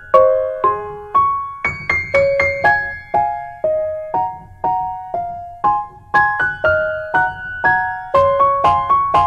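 Background music: a slow keyboard melody of single struck notes, about two a second, each fading away.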